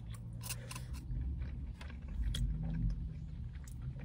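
Close-up chewing of a mouthful of food, with small wet clicks and smacks of the mouth scattered throughout, over a low steady hum.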